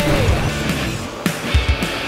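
Rock music with guitar and drum hits; a held note slides down and fades at the start.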